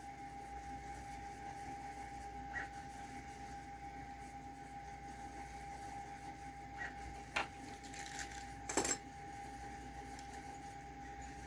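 Small metal hardware clinking: a few light clicks, then one louder ringing clatter about nine seconds in, as loose parts are handled and set down during the printer's disassembly. A faint steady whine runs underneath.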